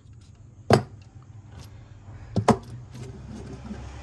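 Sharp metallic clicks and knocks from a hand handling the RC car's metal chassis and motor mount. There is one click under a second in and a quick double click a little after two seconds.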